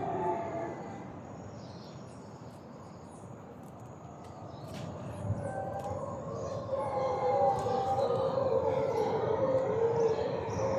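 A group of mantled howler monkeys roaring together: a long, wavering drone that fades after the first second and swells back louder from about five seconds in. Birds chirp over it.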